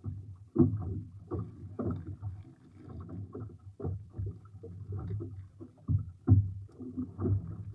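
Water slapping and knocking against the hull of a small fishing boat in a chop, with irregular thumps as the net line and its float are hauled over the side; the loudest knock comes about six seconds in.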